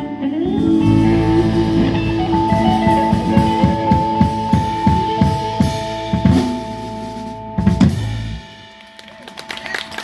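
Live band with drum kit, electric guitar and keyboard playing the last bars of a blues-rock song: held notes over steady drum hits, ending on a final loud hit just before eight seconds in, after which the sound dies away.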